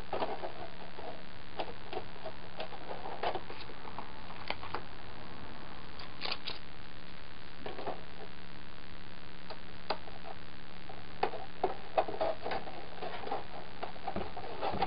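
Hands handling a thin white plastic armor shin piece and small adhesive-backed Velcro pieces: scattered small clicks, taps and rustles of plastic, most frequent about three-quarters of the way through, over a steady low hum.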